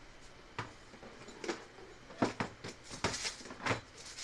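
Handling noise from small hard tool parts, such as drill bits and quick-change adapters, being picked up and set down: about seven light clicks and knocks, unevenly spaced, the loudest in the second half.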